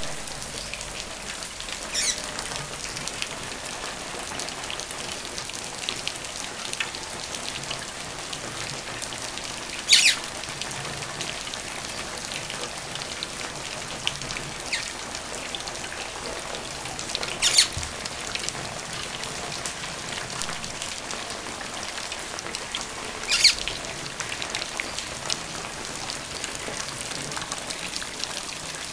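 Rain falling steadily on a flooded yard and concrete, a constant hiss. Four brief, sharp high-pitched sounds stand out from it, spread through the rain.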